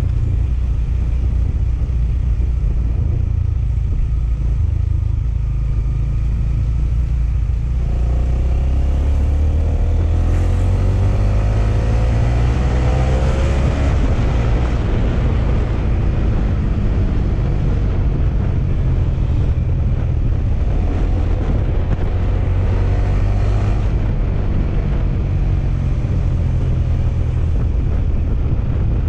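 Honda motorcycle engine heard from the rider's seat over heavy wind rumble on the microphone. About eight seconds in, the engine pitch rises as the bike accelerates, and it rises again more briefly later on.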